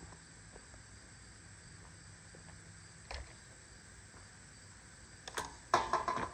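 Quiet outdoor background with a faint steady high-pitched tone. There is a single knock about three seconds in, and a cluster of sharp knocks and rattles near the end from handling gear.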